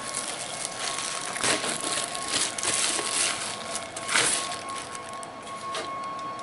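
Plastic packaging wrap crinkling and rustling as it is handled, with louder crackles about a second and a half in and again about four seconds in.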